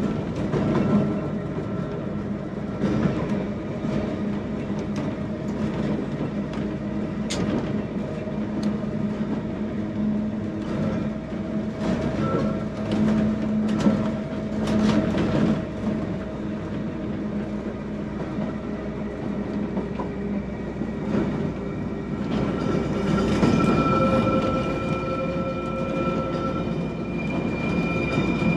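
Electric tramcar of the Manx Electric Railway running along the track, heard from inside its wooden cab: a steady whine from the traction motors and gears, with sharp clicks from the wheels over the rail joints. Higher whining tones join in for the last several seconds.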